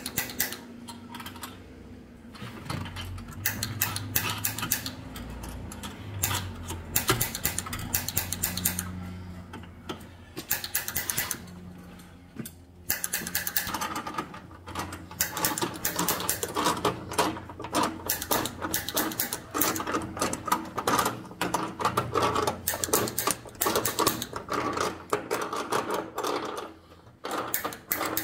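Rapid, repeated clicking of a gas water heater's pilot igniter sparking while the pilot is lit, with a short pause about halfway through.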